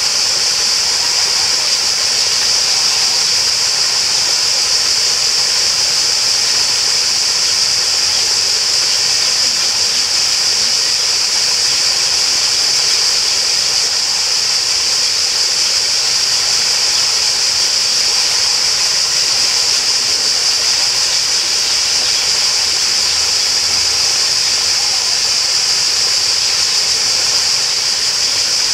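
Flowing water rushing steadily, like a stream or small waterfall, with a continuous high-pitched shrill hiss on top.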